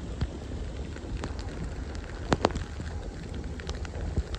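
Light rain and wind outdoors: a steady rush with a low rumble of wind on the microphone and scattered sharp ticks of drops. A pair of louder clicks comes close together about two and a half seconds in.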